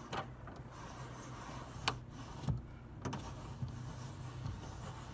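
Manual window crank on a Toyota Corolla door being turned, its regulator winding the glass, with a handful of sharp clicks and knocks spread through, over a steady low hum.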